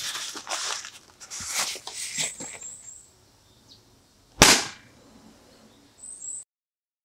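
Paper towel rustling and crinkling, then about four and a half seconds in a single loud, sharp smack from a swat at a fly.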